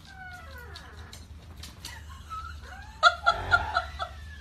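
Black Labrador whining: a few falling whimpers at the start, then a louder, wavering whine about three seconds in.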